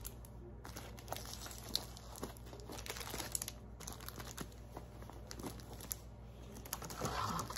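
Clear plastic wrapping on paper planners crinkling and rustling as the books are handled and set down in a stack, in faint, scattered crackles with light taps.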